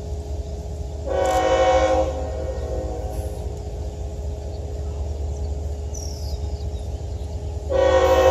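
Union Pacific 8228's air horn on the approaching coal train, sounding two chord blasts of about a second each, one about a second in and another near the end, over a steady low rumble.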